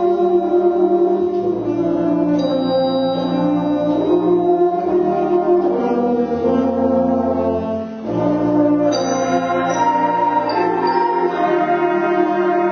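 Junior high concert band playing long, held chords, with the brass to the fore. The sound dips briefly about eight seconds in, then a new chord comes in.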